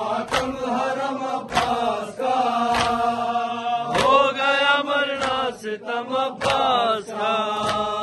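Voices chanting a Shia noha lament with long held notes. A steady rhythm of matam chest-beating thumps runs underneath, about one beat every 1.2 seconds.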